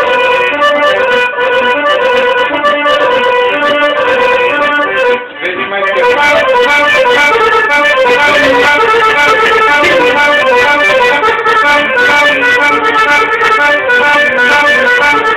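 Accordion playing a melody in quick successive notes, with a brief break about five seconds in before the playing picks up again.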